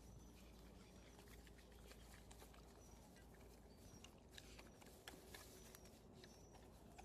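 Faint, scattered clicks and crunches of a dog eating, over a low background hum.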